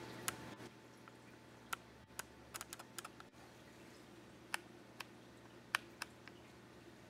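About a dozen sharp, irregular clicks, some in quick runs, over a faint steady hum that fades about half a second in.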